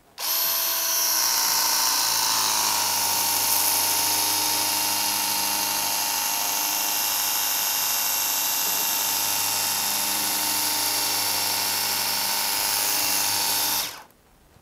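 24V cordless pressure washer running with the trigger held. Its pump motor whines steadily under the hiss of the water jet. It starts abruptly and cuts off about fourteen seconds in.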